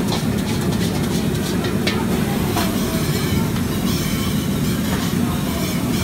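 Gas wok burner running at full blast with a steady low rush, while a metal spatula scrapes and clanks against the wok as noodles are stir-fried.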